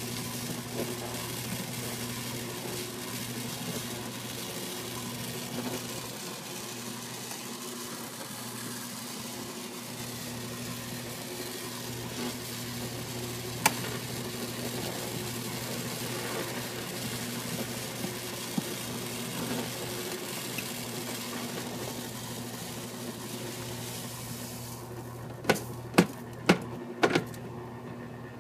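CatGenie self-washing litter box running its cleaning cycle: a steady motor hum under a hiss of the washable granules moving against the scoop. Near the end the hiss stops and several sharp clicks follow as the scoop lifts out of the granules.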